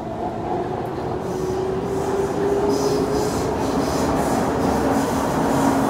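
Kawasaki C151 metro train running in a tunnel, the traction motors whining with a pitch that rises over the first few seconds as it gathers speed, over a continuous wheel and track rumble that grows louder.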